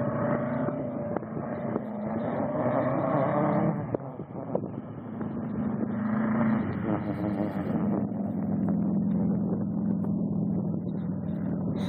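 Off-road buggy engine running under throttle as it drives off, its pitch dropping about 4 s in, climbing again, then settling lower near the 8-second mark.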